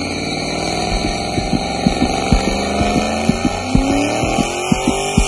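Ford Mustang GT's V8 with long-tube headers running, its pitch slowly sagging and then rising again, with uneven low thumps in the exhaust note from about a second and a half in.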